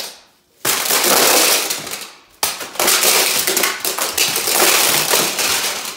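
Hard plastic magnetic building tiles clattering and crashing down as a tall tile tower is knocked over, a dense rattle of many small clicking impacts in two bursts, the second starting about two and a half seconds in.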